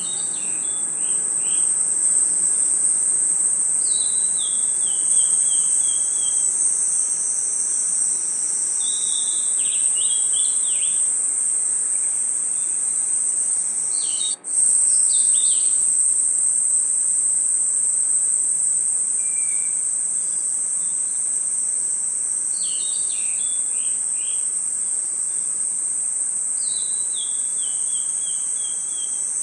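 Night chorus of crickets and insects: a steady high-pitched trill, with a bird-like call of short descending notes every few seconds. The chorus drops out for an instant about halfway through.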